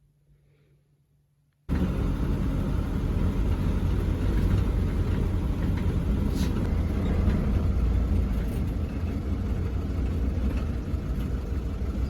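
Near silence, then about two seconds in a steady low rumble of road vehicle noise starts abruptly and carries on.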